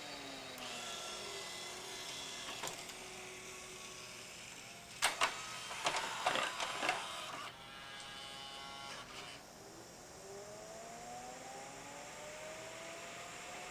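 Pioneer CLD-3070 LaserDisc player's Alpha Turn auto-reverse mechanism at work. A motor whine falls in pitch at the start. Loud clicks and clatter follow from about five to seven and a half seconds in as the pickup is swung over to the disc's other side, then a steady motor whine runs for a couple of seconds. A whine rising in pitch comes near the end.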